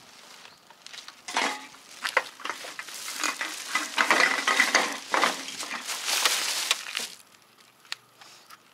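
Plastic bags crinkling and rustling as they are loaded into a kei truck's cargo bed. The sound starts about a second in and stops shortly before the end.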